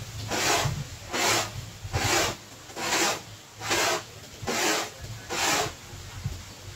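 Corn being grated by hand on a grater fixed to a wooden board, in even back-and-forth strokes about one every 0.8 seconds. Seven strokes, stopping about a second before the end.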